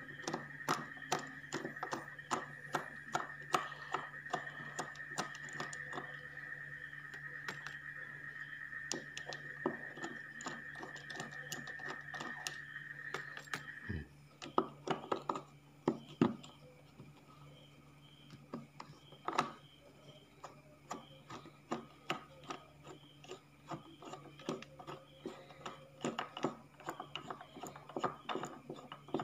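Metal tool clicking and scraping on the knob nuts of an active speaker's control panel as they are worked loose, in irregular ticks. A steady low hum runs underneath, and a steady high tone stops about halfway through.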